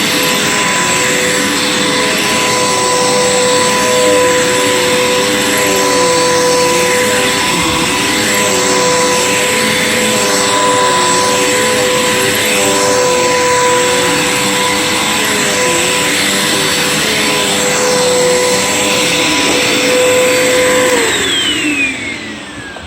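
Bissell PowerForce bagged upright vacuum cleaner running steadily, its motor giving a high whine over the rush of air, then switched off about 21 seconds in, its pitch falling as the motor spins down.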